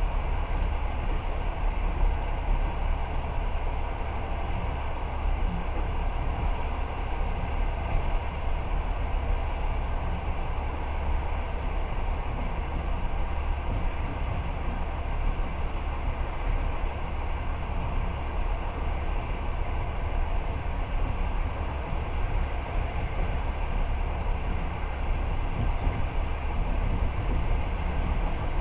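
Passenger train carriage running at speed, heard from inside the car: a steady low rumble and rolling noise from the wheels on the rails, with no break or change.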